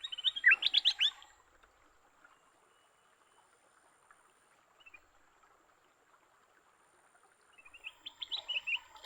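A songbird singing two short phrases of quick, high chirping notes. The first comes right at the start and the second near the end, each about a second long.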